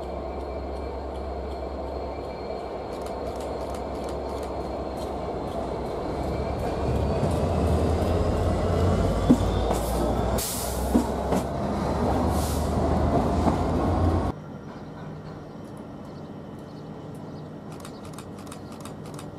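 A locomotive runs close past on the platform line, its engine rumble building as it approaches, with two short high-pitched bursts of noise as it goes by. About 14 seconds in the sound cuts off abruptly to quieter station background.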